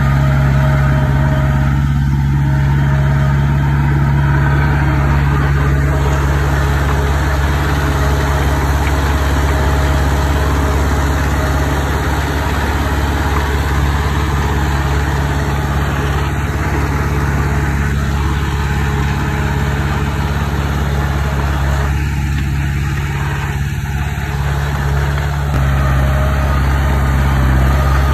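Heavy road-building machine's diesel engine running steadily at low speed, a constant low drone, growing a little louder near the end.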